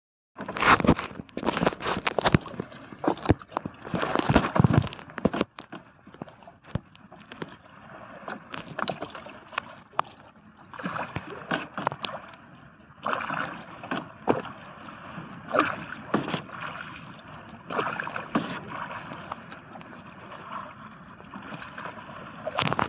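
Water sloshing and splashing around a small wooden boat being poled along a river, with knocks and clatter on the hull. The clatter is densest in the first five seconds; after that the water noise comes in surges every second or two.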